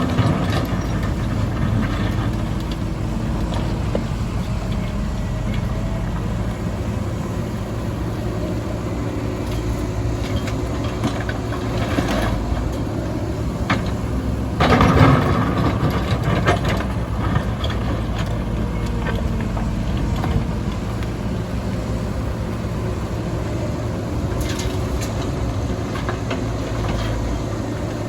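Heavy diesel engine of construction machinery running steadily, with a few short louder surges of noise, the strongest about halfway through.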